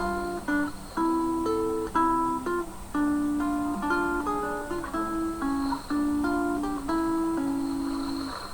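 Acoustic guitar playing a slow melody of plucked single notes, each ringing out and fading.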